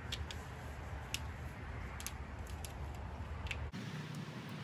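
Faint handling sounds: a few light clicks and rustles as an extension cord is worked by hand, over a low steady rumble that cuts off abruptly near the end.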